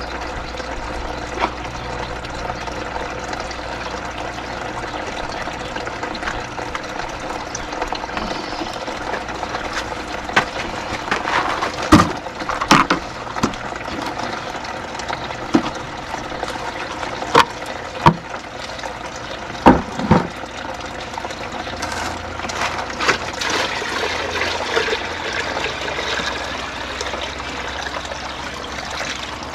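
Water running in a hydroponic growing system as its reservoir is topped up, with a few sharp knocks partway through.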